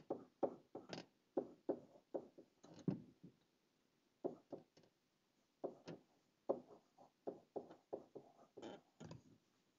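Stylus tapping and sliding on a tablet as chemical formulas are handwritten: a run of faint, irregular short taps with a couple of brief pauses.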